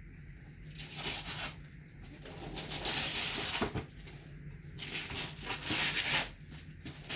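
Wrapping paper being torn and crumpled off a gift, in three rustling bursts.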